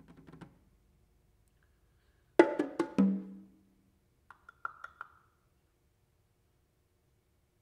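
Sparse solo hand percussion with long silences: a quick flurry of sharp strikes on congas about two and a half seconds in, ending on a ringing low drum tone. Then a few light, high-pitched taps on small wooden blocks.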